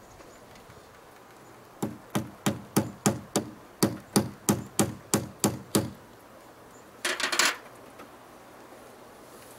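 Hammer tapping on a wooden fence post: a run of about a dozen sharp, even blows, about three a second, fastening the security light's wire to the post. About seven seconds in comes a brief rattle of noise.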